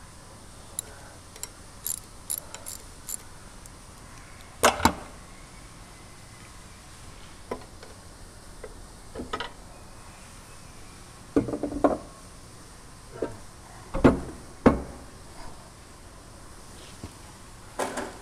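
Scattered knocks, clicks and thumps of hands and tools on pump parts as the wet end of a Taco FI series pump is worked out of its casing. Light ticks come first, then a loud double knock about four seconds in and two heavy thumps near the two-thirds mark.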